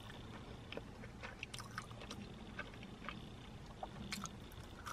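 Faint chewing and mouth sounds of eating French fries dipped in barbecue sauce, scattered soft clicks and smacks over the low steady rumble of a car cabin.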